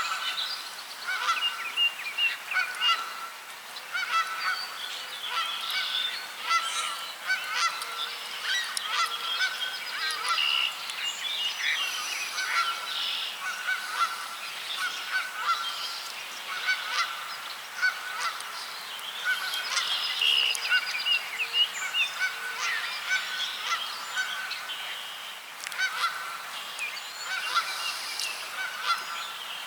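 Many birds calling at once in a continuous chorus of short overlapping calls, with one short note repeated over and over at an even pace.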